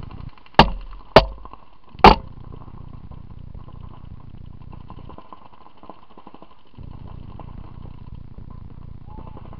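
Three sharp pops of a paintball marker firing, the second about half a second after the first and the third about a second later, over a steady low rumble.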